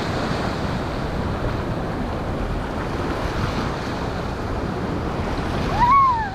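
Ocean surf washing steadily, with wind buffeting the microphone. A short cry rises and falls in pitch near the end.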